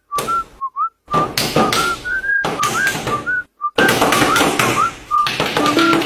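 A whistled tune of short notes and little upward slides, with loud blocks of hissy noise cutting in and out abruptly between brief silences.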